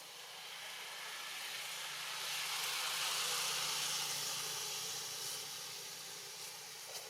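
A vehicle passing by: a rushing hiss that builds to a peak about three seconds in, then fades away.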